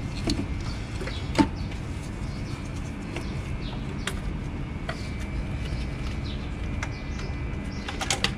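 Sparse light clicks and knocks of hand work on the thermostat of a BMW N55 engine as it is being removed. The sharpest knock comes about a second and a half in, over steady background noise.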